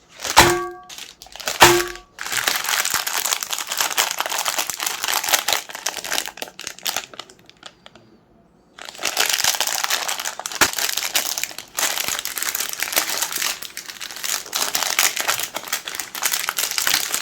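Two short pitched sounds near the start, then dense crinkling and crackling as Magnum ice cream bars' chocolate shells are crushed in a meat grinder. The crackling stops for about a second a little past the middle, then starts again.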